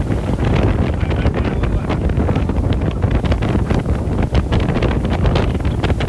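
Wind buffeting the microphone on a speed boat under way: a steady low rumble broken by many short gusts.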